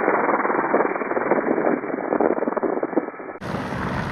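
Helicopter rotor and engine noise heard through the crew intercom: a dense, steady rumble with everything above the voice range cut off. A little over three seconds in it switches abruptly to a fuller, brighter recording of the same helicopter noise.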